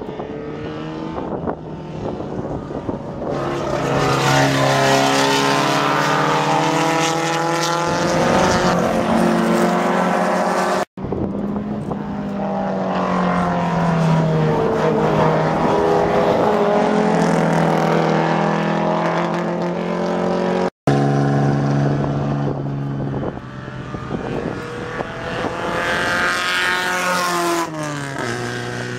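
Vintage race car engines revving hard through a corner, the pitch climbing and dropping with gear changes and throttle. Three passes are cut together, with a brief break between each. The last pass ends with the engine note falling as the car slows.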